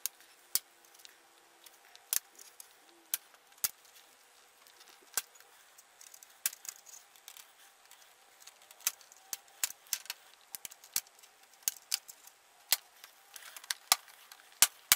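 Plastic bezel of a CyberPower FANGBOOK III HX6-146 laptop screen being pried off by hand, its snap-in clips releasing in a string of sharp clicks. The clicks are sparse at first and come much more often in the second half.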